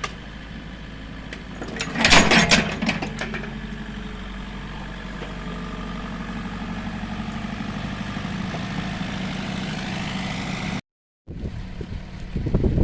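Excavator's diesel engine running steadily, with a burst of loud clanking about two seconds in. The engine note then slowly rises, and the sound drops out briefly near the end.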